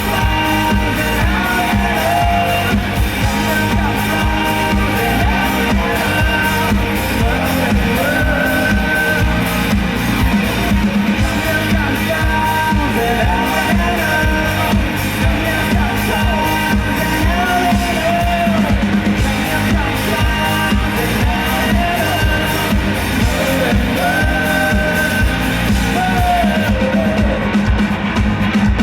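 Live pop-rock band performing a song, a male lead vocal singing over a steady, regular drum beat.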